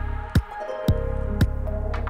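Background music with a steady beat, a kick drum about twice a second over held bass and higher notes.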